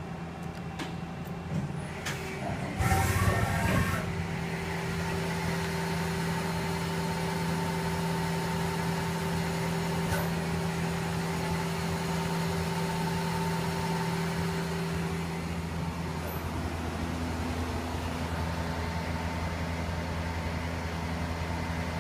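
Okuma Captain L-470 CNC lathe running: a short, loud rattle about three seconds in, then a steady machine hum with several held tones, which changes to a lower hum about sixteen seconds in.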